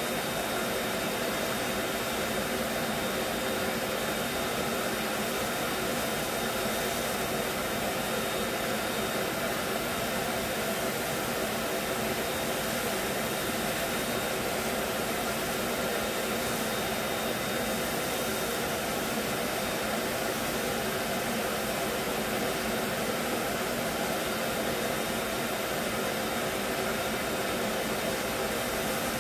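Vacuum cleaner running steadily through its hose: an even rush of air with a steady high motor whine, unchanging throughout.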